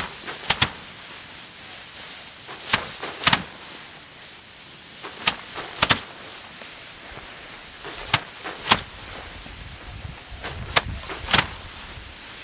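Bundles of cut rice being slammed by hand against a threshing board to knock the grain loose, giving sharp thuds, usually two strikes in quick succession about every three seconds.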